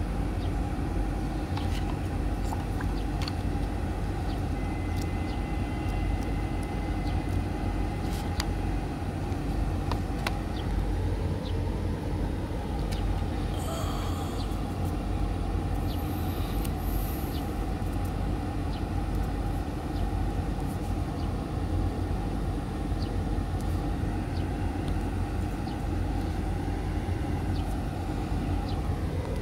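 Steady low background rumble, with scattered light clicks and taps of a smartphone and its cardboard box being handled.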